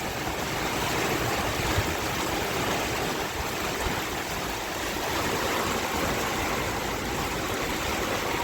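Heavy tropical-storm rain pouring down steadily.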